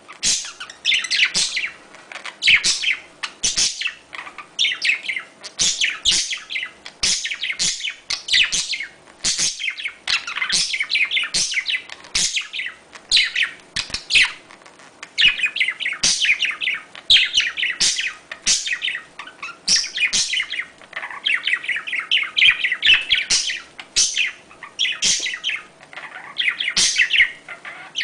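Budgerigars chattering and chirping in rapid, overlapping calls, the warbling courtship calls of breeding budgies.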